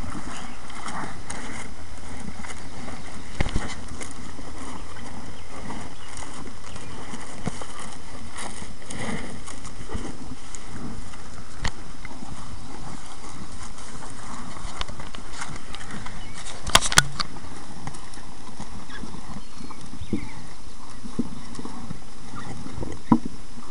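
A steer eating feed from a plastic pan, with irregular chewing and nosing sounds under a steady hiss. A few sharp knocks stand out, the loudest a quick double knock partway through.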